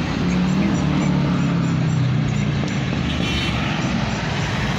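Cars driving past at close range through a street intersection over steady traffic noise, the engine hum of one passing car loudest for the first couple of seconds and easing off.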